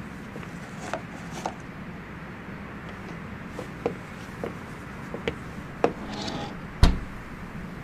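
Light knocks and clicks of a café's glass door and hanging sign being handled, then a heavier thump as the door swings shut about seven seconds in, over steady background noise.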